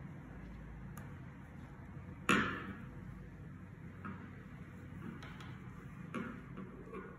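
Hands working on cloth at a wooden table with a tape measure and tailor's chalk: one sharp knock about two seconds in, then a few softer taps and clicks. A faint steady hum runs underneath.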